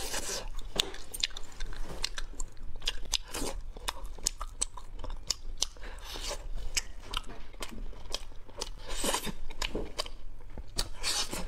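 Close-miked biting and chewing of a chewy jelly candy ball, with wet mouth clicks throughout. Louder bursts come at the start and again about nine and eleven seconds in.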